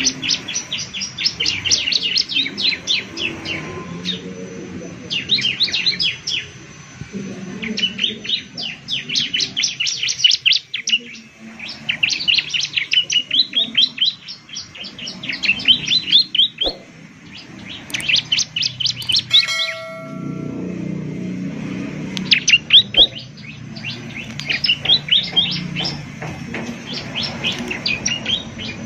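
Bar-winged prinia (ciblek) singing: quick runs of sharp, high chirps, each run lasting a second or two, repeated after short pauses. About two-thirds of the way through, a brief different whistled note cuts in, over a low background rumble.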